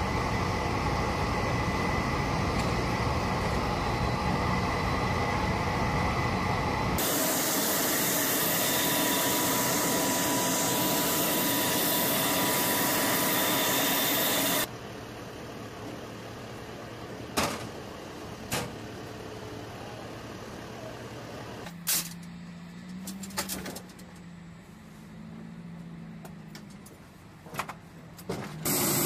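Steady loud engine noise with a faint whine, cutting to a louder hiss about seven seconds in. About halfway through it drops to a quieter background with scattered sharp clicks and knocks, and a low wavering hum near the end.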